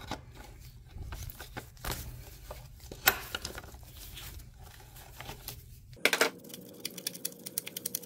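Scattered clicks and scrapes of a large wrench working a plastic nut loose on the stop-switch wiring in an outboard's lower cowling, with one sharp click about three seconds in. Near the end, a run of small ticks and rustles.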